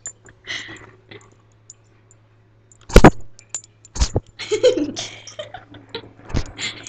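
A dog bumping and nosing against a laptop close to its built-in microphone, giving several sharp knocks, the loudest about three seconds in. A girl giggles softly between the knocks.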